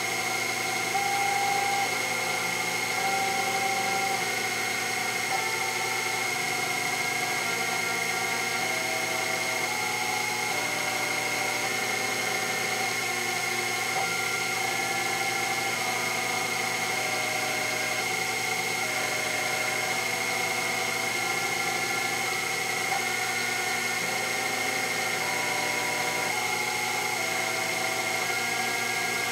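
Sherline CNC mill running a simultaneous fourth-axis cut in Delrin: a steady high whine with stepper motors humming underneath at pitches that step up and down every second or so as the axes change feed speed.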